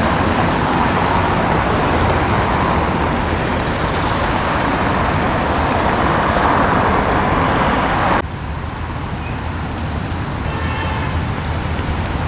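Road traffic on a city street: cars passing close by, a steady loud noise of tyres and engines that drops suddenly about eight seconds in to a quieter traffic background.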